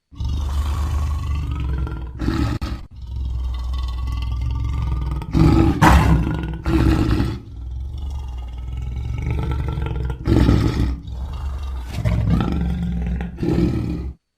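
Lion roaring and growling: a continuous low rumble broken by about five louder roars, the loudest around the middle. The sound starts and stops abruptly.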